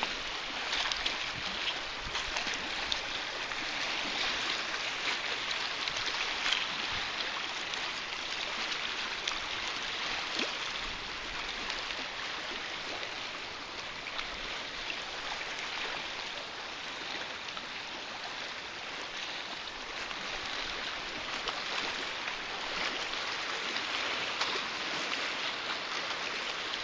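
Steady hiss and trickle of lake water along a kayak's hull as it moves, with scattered faint splashes.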